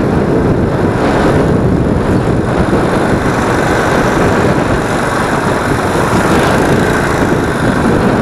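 A small ATV's Predator 212 single-cylinder engine running steadily as it is ridden, with a dense, even noise.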